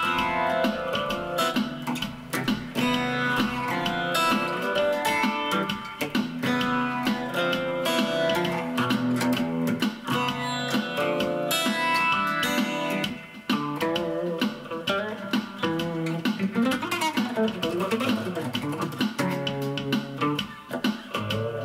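Custom shop acoustic guitar played through a Zoom G1 Four effects pedal into a Roland Cube-10 amp on its JC Clean setting with a little reverb. It plays a picked melody with quick runs of notes over chords.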